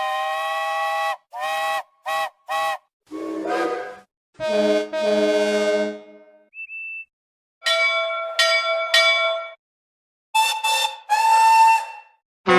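A run of separate steam-engine whistle and horn sound effects with short silent gaps: a held chime whistle, three quick toots, a lower whistle that rises in pitch, a deeper longer blast, a tiny high pip, then a three-part whistle and a last few toots ending in a held note.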